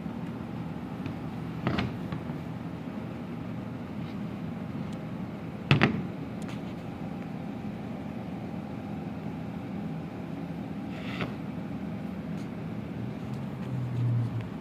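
Sharp knocks of a metal small-engine electric starter motor being handled, three in all, the loudest about six seconds in, over a steady low background hum; a short low drone rises near the end.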